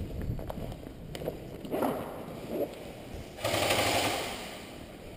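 Airsoft electric rifle firing a full-auto burst. The rapid rattle starts suddenly about three and a half seconds in and tails off over the next second or so. Before it there is the soft rustle of gear being handled.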